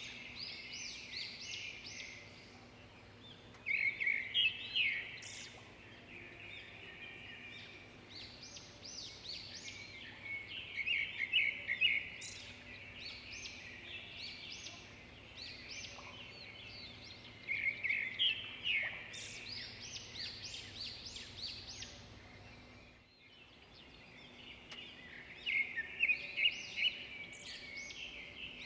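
Birds chirping: rapid strings of short high chirps that swell into loud spells every several seconds, with softer chirping in between.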